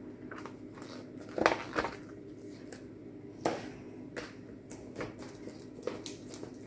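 Hands handling a shrink-wrapped foam-board puzzle sheet and its manual in a cardboard box: a string of short knocks and plastic rustles. The loudest comes about a second and a half in and another two seconds later, over a steady low hum.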